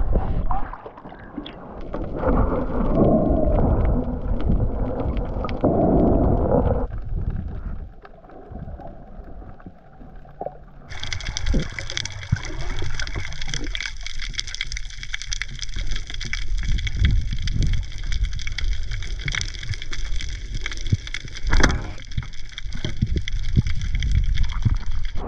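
Underwater sound picked up by an action camera on a diver: a muffled rumbling water noise with scattered clicks, loudest in the first several seconds. About eleven seconds in a steady high-pitched whine joins it and runs on.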